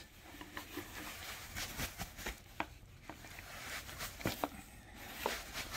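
Nylon stuff sack and its contents being handled and lifted out of a cardboard box: soft fabric rustling with scattered small taps and clicks.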